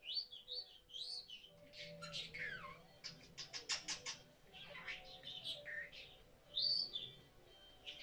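Pet budgerigar warbling and chirping: quick rising and falling chirps, with a fast run of clicks about three seconds in.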